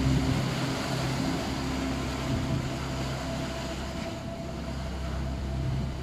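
Sea waves breaking and washing over rocks on a rocky shore, under a steady low sustained drone of meditation music.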